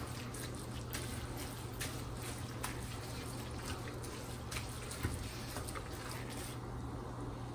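Grated carrots simmering in milk in a nonstick kadai, with soft liquid bubbling as a wooden spatula stirs through them and scattered light ticks of the spatula against the pan; the milk is cooking down into the carrots for carrot halwa. A steady low hum runs underneath.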